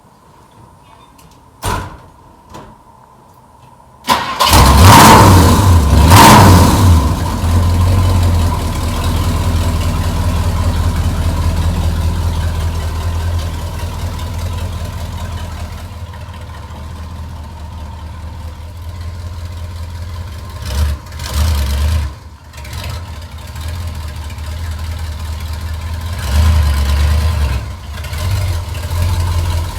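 A couple of clicks, then about four seconds in a car engine cranks and starts with a brief flare, and settles into a loud idle with a few short rises in engine speed later on. The exhaust is leaking where the flex-pipe joint pulled apart, so the engine sounds close to straight-piped.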